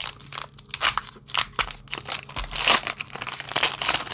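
Foil wrapper of a Pokémon trading card booster pack being torn open and crinkled by hand: a quick run of irregular crackling and crinkling.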